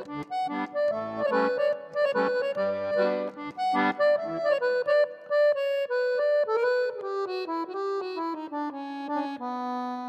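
Background music led by an accordion: a melody of changing notes over bass notes, settling into a held chord near the end.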